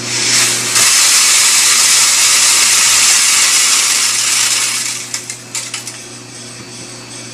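Roasted coffee beans poured through a chaff-blowing separator and cascading into a wire sieve in a metal bowl. They make a loud, dense rattling rush for about four and a half seconds, then thin out into a few scattered clicks of last beans dropping. A steady low hum runs underneath.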